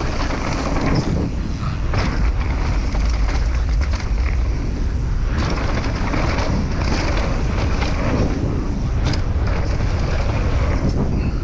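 Mountain bike riding fast down a dirt jump trail: wind buffeting the microphone over the rumble of knobbly tyres on packed dirt, with occasional knocks and rattles from the bike over the bumps and jumps.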